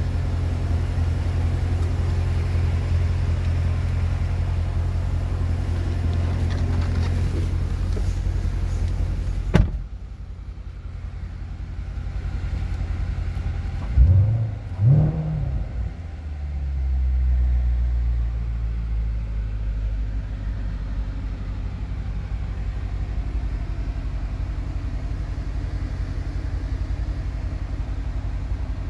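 2016 Corvette Stingray's 6.2-litre LT1 V8 idling with a steady low rumble. About ten seconds in there is a sharp thump, like a door shutting, and after it the engine sounds duller, as from inside the closed cabin. About halfway through, the throttle is blipped twice, the revs rising and falling quickly each time.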